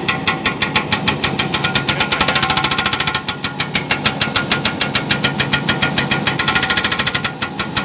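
Excavator's hydraulic breaker hammering rock in a rapid, steady rhythm of several blows a second, over the steady hum of the excavator's engine.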